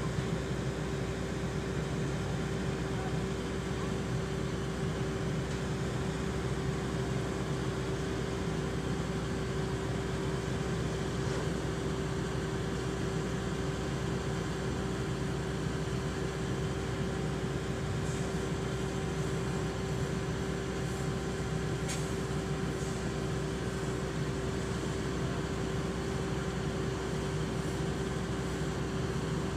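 A vehicle engine idling steadily: a low rumble under a constant hum, with a faint click about three-quarters of the way through.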